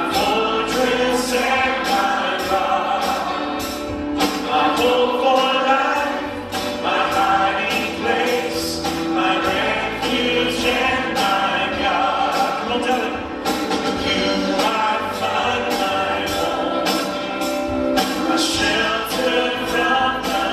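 Live gospel worship song: a man sings lead into a microphone, with other voices singing along and a band keeping a steady beat.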